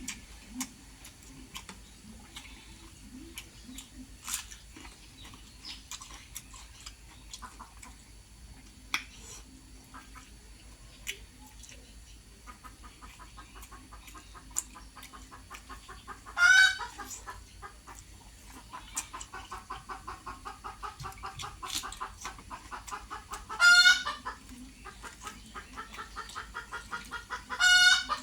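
Chickens clucking in a fast, steady run, broken three times by a loud, short squawk, in the manner of a hen's cackle. Before the clucking starts, scattered small mouth clicks and smacks of someone eating rice and curry.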